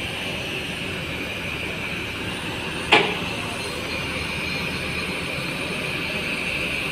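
Steady low rumble of a large diesel coach engine idling, under a steady high hiss, with one sharp knock about three seconds in.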